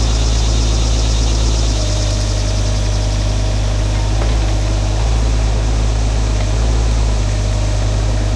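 A Shantui mini excavator's diesel engine runs steadily at a loud, even level. Its note shifts slightly a few times.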